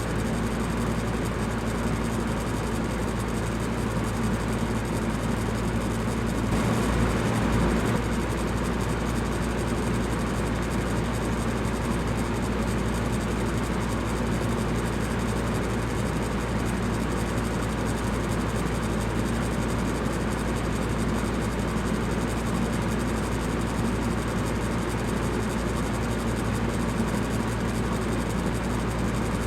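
Electric fan running steadily: an even rushing whoosh of moving air over a low motor hum, briefly a little louder about seven seconds in.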